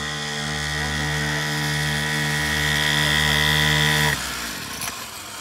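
Small 49cc two-stroke pocket-bike engine running at a steady, high speed, growing a little louder as the bike approaches, then cutting off suddenly about four seconds in.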